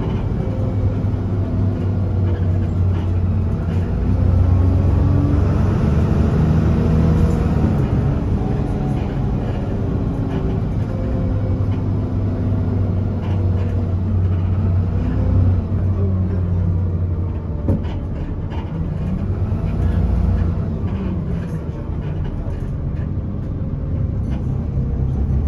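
Alexander Dennis Enviro300 bus's diesel engine heard from inside the passenger saloon, running with a steady low hum and its pitch rising and falling several times. A single sharp click comes about two-thirds of the way through.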